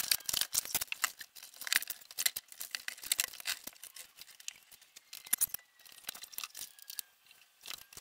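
Dense, irregular clicking, rustling and scraping of hands and panels handling a small refrigerator as it is worked into a plywood cabinet.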